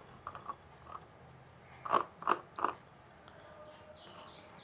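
Three short, sharp crunching clicks about a third of a second apart, about two seconds in, with a few fainter ticks before and after.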